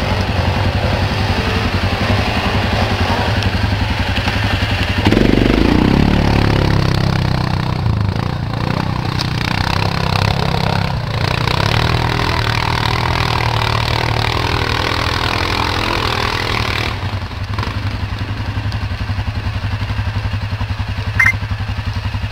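Quad ATV engine running hard under load as it claws up a steep dirt and leaf slope, with a louder surge of revs about five seconds in and the sound easing off from about seventeen seconds. A brief sharp click near the end.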